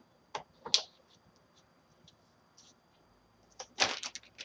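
Plastic zip-top bag crinkling in gloved hands: two short rustles about half a second apart near the start, then a louder flurry of rustles near the end.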